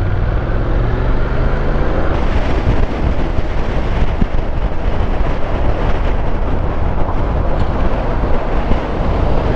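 Honda NC750X's parallel-twin engine running under way, with heavy wind and road rush on the camera mic. The engine's steady note stands out for about the first two seconds, then the wind rush covers it.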